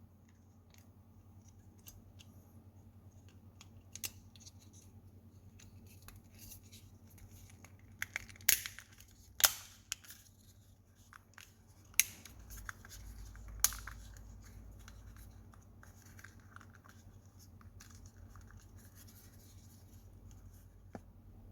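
Sharp, separate clicks and snaps from the plastic parts of a Google Chromecast remote being handled and fitted back together during reassembly, a handful of them spaced a second or more apart and loudest around the middle, over a faint steady low hum.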